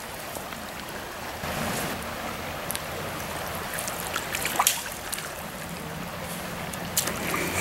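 Steady rush of flowing stream water, with a few brief faint clicks.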